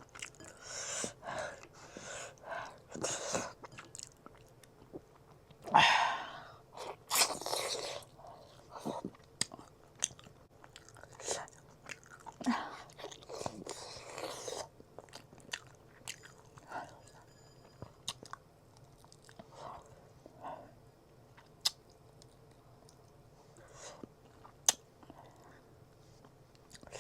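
A person chewing and biting food close to the microphone, eating a homemade dinner of rice, curry and chicken, with irregular wet mouth sounds and crunches; the loudest bites come about six to eight seconds in.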